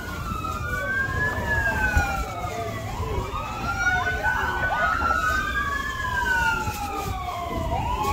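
Emergency sirens wailing, at least two at once and out of step, each slowly rising and falling in pitch over a few seconds.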